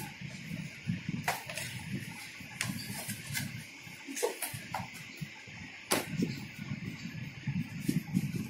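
Hard plastic parts of a toy kitchen set knocking and clicking as the set is handled and turned over, with several sharp clicks, the loudest about six seconds in, over a steady hiss.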